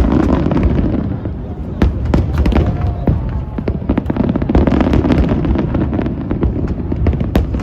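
Fireworks display: a dense run of sharp bangs and crackles over a continuous low rumble, with especially sharp reports about two seconds in and again near the end.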